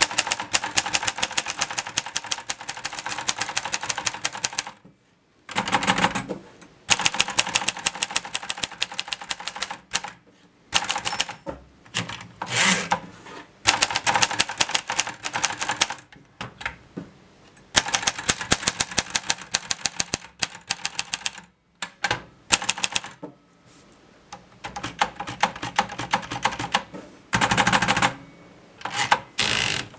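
Groma Kolibri manual portable typewriter being typed on: rapid key strikes in runs of a few seconds, with short pauses between them.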